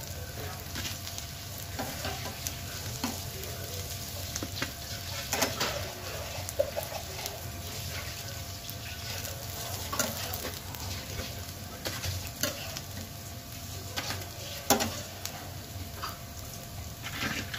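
Potato patties sizzling as they shallow-fry in oil in a flat non-stick pan. A steel spatula scrapes and knocks against the pan several times as the finished patties are lifted out; the sharpest knock comes about three-quarters of the way through.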